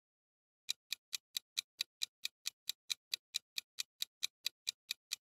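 Countdown timer sound effect: a clock ticking quickly and evenly, about four to five ticks a second, starting just under a second in.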